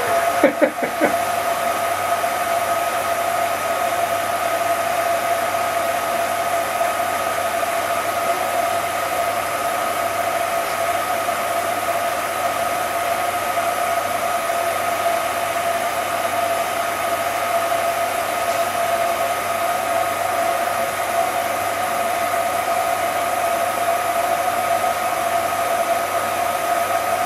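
Cine film projector running: a steady mechanical drone with a constant pitched hum.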